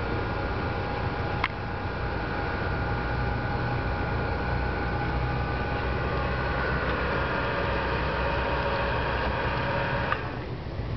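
Capstan machinery running steadily with a low hum and a whine of several steady tones, heaving in the messenger rope; the whine stops about ten seconds in. One sharp click about a second and a half in.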